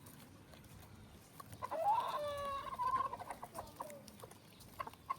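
Chickens clucking: one drawn-out call rising then held steady, starting about a second and a half in, followed by short clucks and a quick run of clucks near the end.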